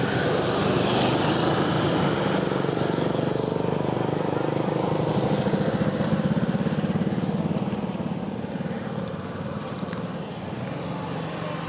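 A motorcycle engine running close by with a steady pulsing idle, easing off a little after about eight seconds.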